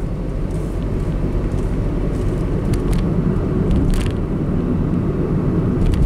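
Cabin noise of a Honda N-One's turbocharged 660 cc three-cylinder kei car cruising at steady speed: a steady low engine and road rumble, with a few faint clicks.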